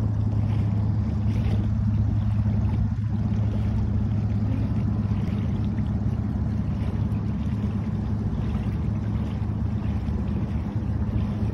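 Engine of a small boat running steadily under way: an even, low drone with a hiss over it.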